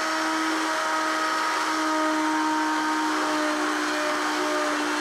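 Router motor on a multi-router mortising machine running at full speed, a steady high whine with a rushing noise, as the bit is levered into a wooden leg to cut a mortise.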